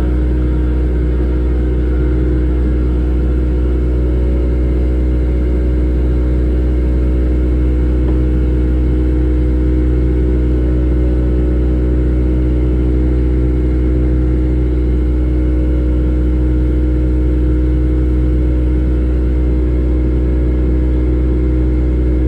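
1994 Mercury 90 HP two-stroke outboard running steadily at speed, a loud, even engine note with a deep rumble beneath it that holds the same pitch throughout.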